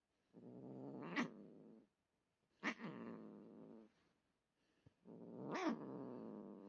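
Domestic cat growling low in three drawn-out bursts of about a second and a half each, each one briefly swelling to a sharper, higher peak.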